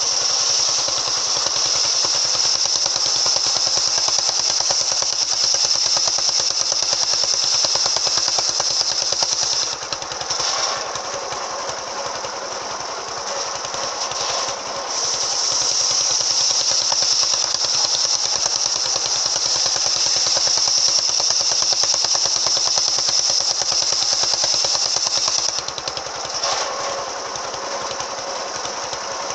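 Engine-driven circular saw with an AKM blade ripping timber: the engine runs steadily under load while the blade gives a high-pitched cutting whine through two long cuts, easing off for a few seconds about ten seconds in and again near the end as the blade runs free between cuts.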